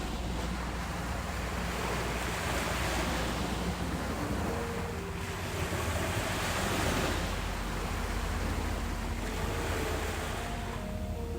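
Sea surf breaking on a beach, swelling and easing, loudest about two to four seconds in and again around seven seconds, with wind buffeting the microphone as a steady low rumble.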